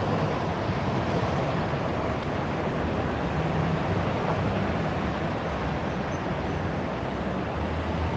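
Steady busy-street noise: traffic rumble and general city hubbub, with a breeze buffeting the phone's microphone.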